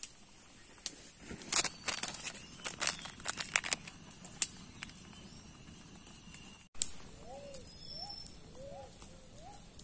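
Sharp, scattered crackles and clicks of a freshly lit campfire for the first few seconds. After a brief break, an animal in the forest gives a run of short rising-and-falling calls, about two a second.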